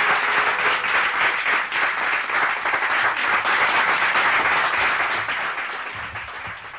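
Audience applause, starting suddenly and fading out near the end.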